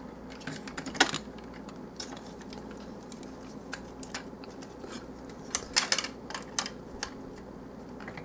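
Plastic parts of a Transformers Revenge of the Fallen Voyager Class Long Haul action figure clicking and rattling as it is handled and transformed, with a sharp click about a second in and a cluster of clicks around six seconds.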